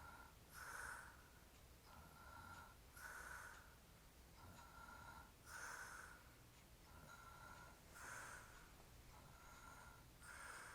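Faint, slow, regular snoring of a man passed out drunk. A louder noisy breath comes about every two and a half seconds, and between them falls a softer breath with a thin whistle.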